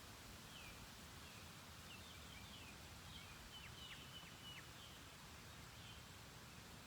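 Faint steady hiss of outdoor ambience, with a small bird giving a quick run of short, high chirps and twitters in the first few seconds.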